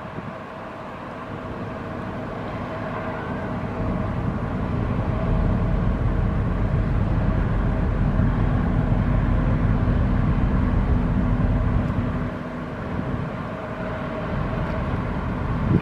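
Large passenger ferry passing, its engines a steady low rumble with a humming drone. The rumble grows louder over the first few seconds and eases off about three-quarters of the way through.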